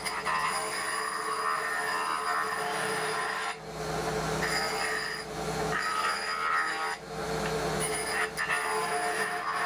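Spindle moulder (wood shaper) running with a steady whine while a strip of wood is fed past the cutter, each pass a rough cutting noise that stops briefly between passes, three times in all.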